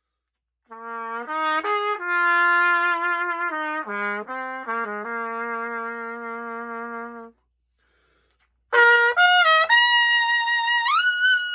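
Solo trumpet playing: a phrase in the low register that settles on a held low note, then after a short pause a quick climb up through several notes to a long note high in the upper register.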